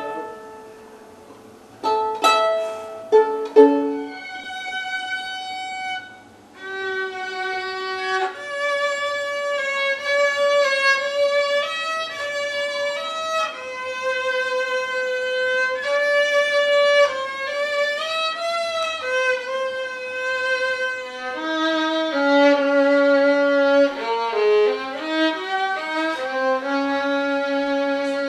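Violin playing: a few plucked notes first, then a bowed melody of held notes, with two notes sounding together in the later part.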